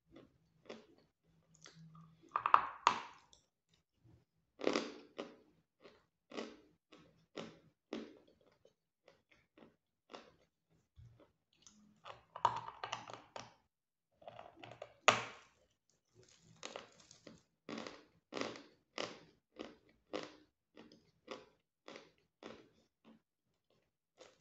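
Close-up biting and chewing of a block of white chalk: hard crunching bites, loudest about 2–3 s in and again about 12–15 s in, with steady crunchy chewing between them at about two crunches a second.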